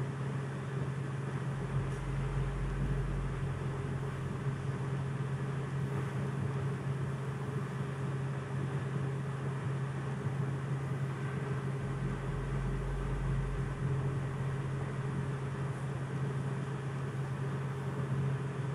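A steady low hum over a hiss, unchanging in level throughout, with a deeper rumble that swells about two seconds in and again about twelve seconds in.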